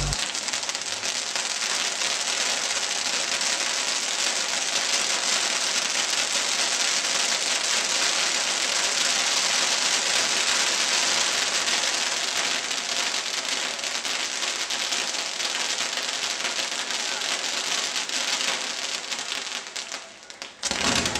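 Ground-firework spark waterfall burning, a dense steady hissing crackle much like heavy rain. It dies down near the end, followed by a short louder burst.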